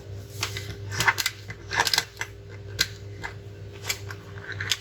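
A string of light, irregular clicks and taps from small tools being handled, over a steady low electrical hum.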